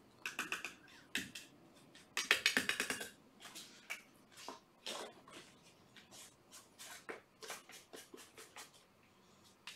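Kittens moving and playing about a room: scattered light clicks, taps and scratchy rattles, with a busier run of rapid clicking about two seconds in.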